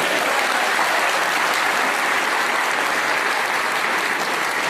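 Large audience applauding, steady continuous clapping with no break.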